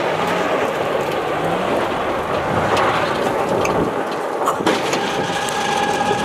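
Dodge Ram pickup drifting on loose gravel: the engine revs while the rear tires spin and spray gravel, under a steady rushing noise. A sharp crack comes about four and a half seconds in.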